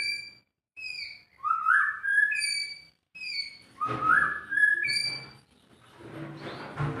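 White-rumped shama singing a short whistled phrase, repeated with the same pattern of clear notes stepping up and down. After the second phrase there is a fainter, lower, rougher sound near the end.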